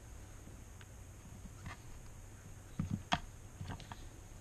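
A few light clicks and knocks of small plastic parts and cables being handled, the loudest two close together about three seconds in.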